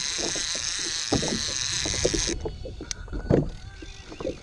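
A fishing reel buzzing steadily at a high pitch while a hooked fish is fought from a kayak, cutting off suddenly a little over two seconds in. Short low knocks and splashes sound underneath.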